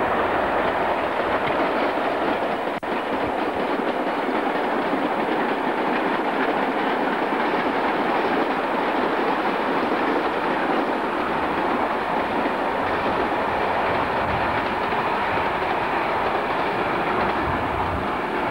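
Freight train of boxcars rolling past: a steady, unbroken noise of wheels running on the rails, with one brief click about three seconds in.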